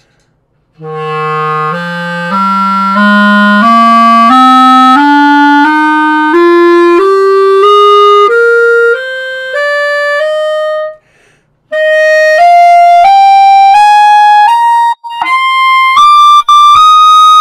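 Soprano clarinet playing a slow ascending scale from its lowest note up about three octaves, one note roughly every half second, with a pause for breath about 11 seconds in. The tone is big and dark, with some highs and resonance in it.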